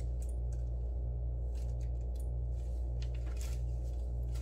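Faint crinkling of a small clear plastic jewellery bag being handled and opened, a few short crackles over a steady low hum.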